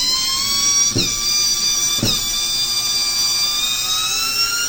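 Old Craftsman cordless drill's motor whining as it is run free, starting suddenly. Its pitch dips briefly twice and then slowly climbs, running slow and struggling.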